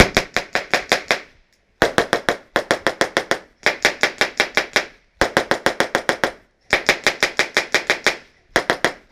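Airsoft gun firing full-auto in rapid bursts of about a dozen shots a second, six bursts with short pauses between them.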